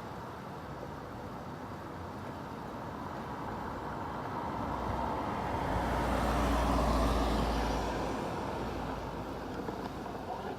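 A road vehicle passing by: a rumbling, rushing noise that swells to its loudest about seven seconds in and then fades away.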